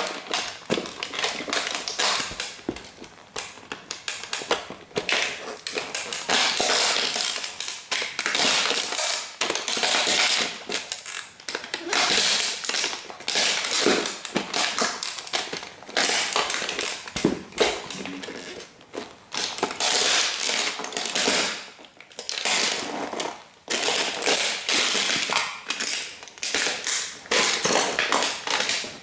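Bugatti model toy car crunching and cracking under the thick rubber soles of Dr. Martens Jadon platform boots, a dense run of snaps, crackles and scraping as the boots grind and stomp it into pieces.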